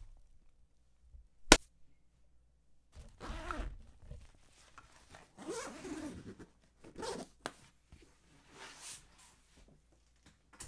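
Backpack zippers being pulled shut in several rasping strokes, with the bag's fabric handled between them. A single sharp click, the loudest sound, comes about one and a half seconds in.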